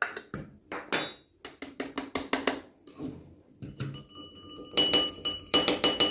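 A metal spoon scraping and clicking against the inside of an electric spice grinder's cup as ground frankincense is knocked out into a mesh sieve. Near the end the metal sieve is tapped rapidly and evenly against a ceramic bowl, about six taps a second, with a light metallic ring, to sift the powder.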